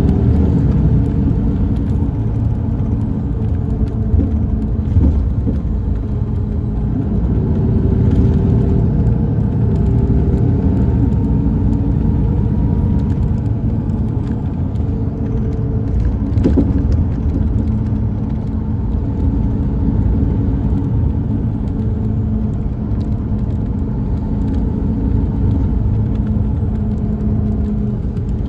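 Inside an MCI D4505 motor coach under way: the Cummins ISX12 diesel's steady drone mixed with road rumble, its engine tones shifting slightly in pitch now and then. A single short knock sounds about halfway through.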